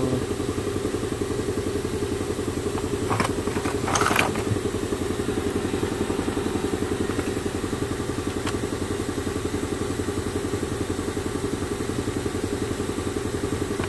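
An engine idling steadily with a fast, even pulse, and a couple of brief clatters about three and four seconds in.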